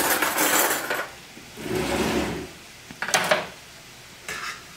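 Metal kitchen utensils scraping and clinking in a skillet of thick cream cheese sauce as it is stirred, first a wire whisk, then a fork. There is a loud burst of scraping at the start and a few sharp clinks a little after three seconds in.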